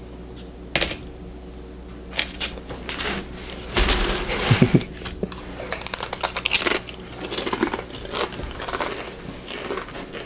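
Tortilla chips crunching and crinkling in irregular bursts, loudest around the middle.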